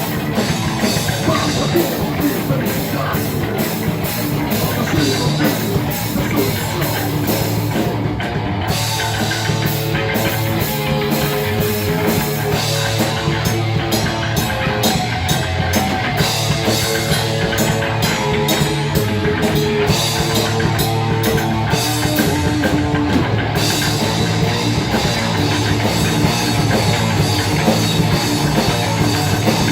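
Grindcore-style metal band recording with a drum kit pounding fast and distorted instruments playing continuously and loud. The high cymbal wash drops out briefly a few times.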